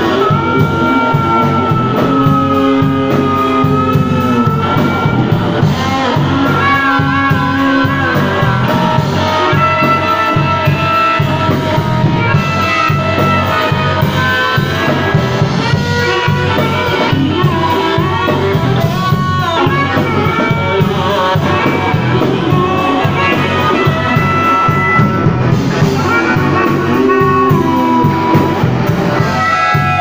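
Live blues band: an amplified harmonica, cupped against a microphone, plays a lead of held and bending notes over electric guitar and a drum kit.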